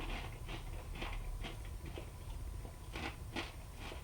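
Crisp Brussels sprout and kale chips being crunched and chewed close to the microphone: a string of short, irregular crackles, two or three a second.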